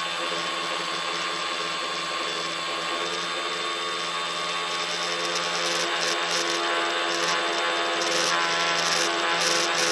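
Electric motors and propellers of a radio-controlled tricopter running steadily in flight, a constant high whine with a buzz, heard through the phone mounted on the craft. It grows a little louder in the second half.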